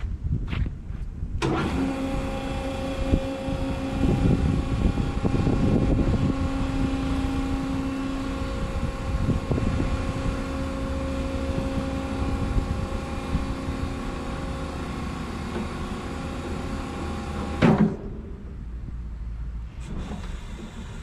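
Hydraulic power unit of a high-rise scissor lift table, its three-phase electric motor and pump starting about a second and a half in and running steadily with a hum of several tones while the table rises. It shuts off abruptly with a short thump near the end.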